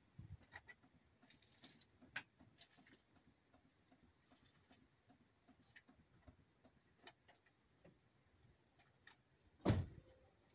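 Faint scattered metal clicks and light knocks, with one louder knock near the end, as a brake rotor is slid onto a front wheel hub and handled into place.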